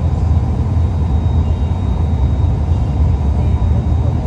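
Steady low roar of a gas-fired glory hole burning in a glassblowing hot shop, while a piece on a blowpipe is reheated in it.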